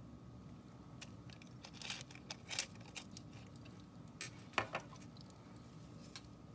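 Sea salt grinder twisted over a plate in a few short grinding bursts about two seconds in, then a sharp clack about four and a half seconds in as a jar is set down on the countertop.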